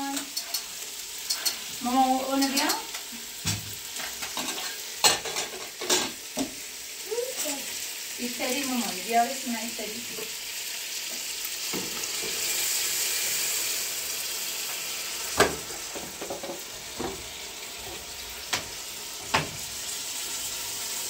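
A steady hiss with sharp clicks and knocks scattered through it, and two short voice-like sounds in the first half.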